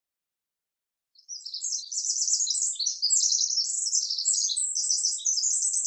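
Songbirds twittering in rapid, dense, high-pitched chirps, starting about a second in after complete silence.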